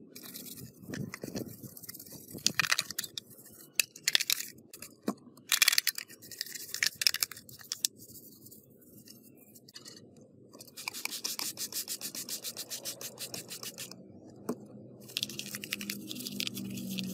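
A small brush scrubbing a wet, grimy plastic radio casing: irregular bursts of strokes, then, after a pause midway, a run of quick, even scrubbing strokes.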